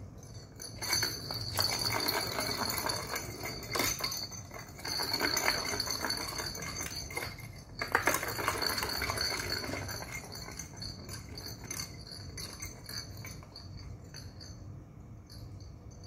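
Plastic balls rolling and rattling around the ball track of a round cardboard cat scratcher toy, batted by a kitten, with clicks and clinks as they knock against the track. It starts about a second in, is loudest over the first half and eases off after about ten seconds.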